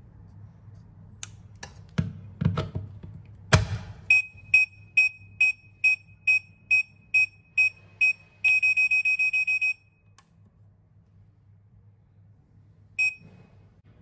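Secrui plug-in doorbell receiver being plugged into a wall socket with its settings button held: a few plastic clicks and a loud snap as it seats, then ten evenly spaced high beeps about two a second and a quick run of rapid beeps. The beep pattern signals that all pairings have been cleared. A single beep sounds near the end.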